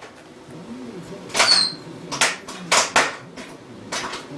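Whistler bottle rockets going off inside a furnace: a series of sharp pops, one with a short falling whistle about a second and a half in. The blasts shake the furnace.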